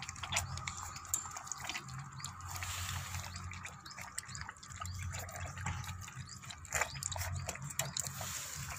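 Several puppies lapping and chewing milk-soaked food from a steel plate: an irregular run of wet lapping and slurping clicks over a steady low hum.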